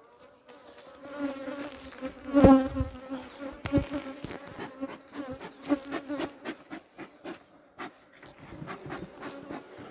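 Honey bees buzzing around an opened hive, a steady hum, with scattered knocks as a frame is worked loose; the loudest knock comes about two and a half seconds in.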